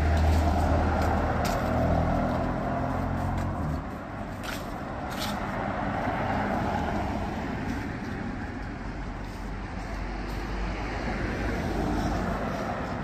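Road traffic: cars passing in swells, with a vehicle's steady low engine hum that stops about four seconds in.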